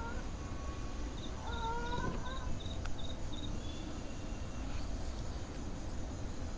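Outdoor night ambience: a run of quick high chirps from a small animal, about three a second, starting about a second in, with a brief distant pitched call around two seconds in, over a steady low rumble.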